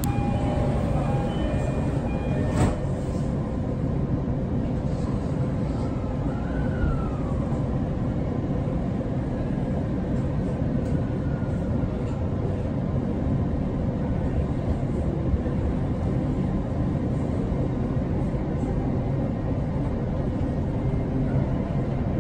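Inside a JR E231 series 800 commuter train as it pulls away from a station and runs on, with a steady rumble from the wheels and running gear. There is a single sharp knock about two and a half seconds in, and a faint whine briefly rises and falls a few seconds later.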